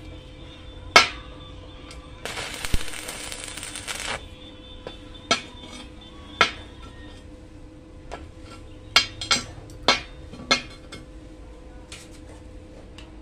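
Arc welding: a stick welder's arc crackles and hisses for about two seconds as a nut is welded to a piece of motorcycle chain. Sharp metal clinks and taps come before and after it, one about a second in and about half a dozen more later, as tools knock against the hot steel workpiece.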